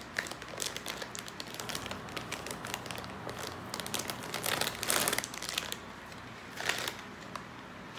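Crinkling of a plastic chip bag being handled and opened. Irregular crackling throughout, loudest about five seconds in.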